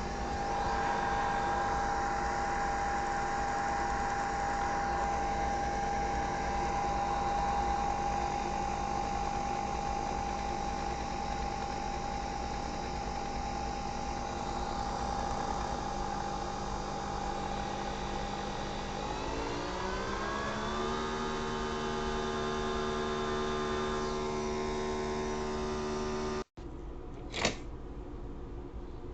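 Nespresso VertuoPlus coffee machine's motor whirring at a steady pitch, then speeding up with a rising whine about two-thirds of the way in and holding the higher pitch. The sound cuts off abruptly near the end, followed by a short sharp chirp.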